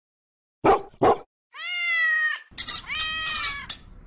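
Recorded domestic animal sounds played from a phone app: a dog barks twice, then a cat meows once, followed by a second, rougher call whose pitch falls, mixed with hissy noise.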